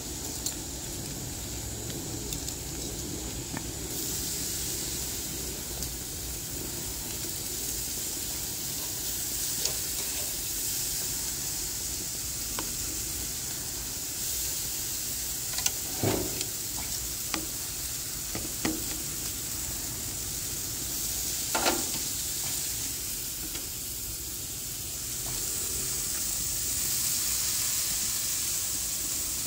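Seasoned pork cutlets and oiled vegetables sizzling on a hot grill: a steady hiss, with a few sharp clacks of metal tongs on the grill grates partway through.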